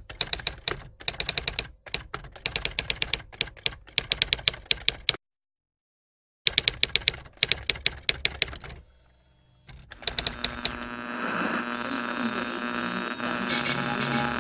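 Typewriter keys clacking in quick runs, with a short silent break about five seconds in. From about ten seconds in a steady hum comes up and carries on.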